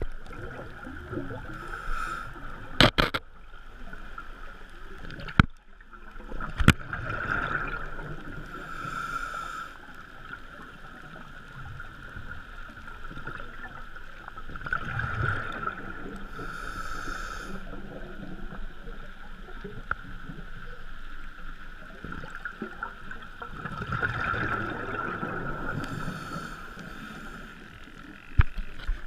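Muffled underwater sound through a camera housing: a scuba diver's regulator breathing in slow cycles, hissing inhales alternating with rumbling exhaled bubbles, over a steady hum. A few sharp clicks or knocks on the housing come a few seconds in.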